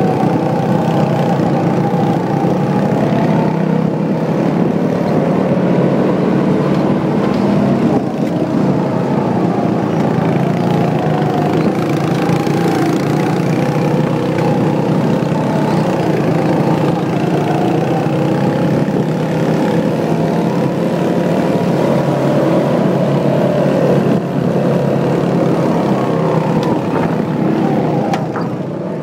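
Go-kart's small petrol engine running at speed over a full stretch of the lap, its pitch rising and falling gently as the throttle changes, dropping slightly near the end.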